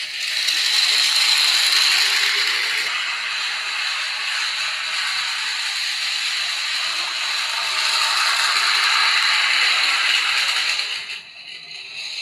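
Miniature toy train running, its small motor and gears giving a steady grinding whir that drops away about eleven seconds in.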